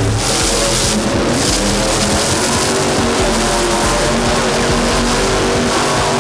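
Monster truck engine running loud under throttle as the truck drives and spins on the dirt, with music playing over the arena's sound system.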